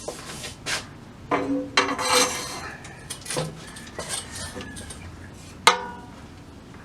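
Metal tools and steel bike parts being handled and set down, clinking and clanking irregularly, several with a brief metallic ring; the loudest is a sharp ringing clank near the end.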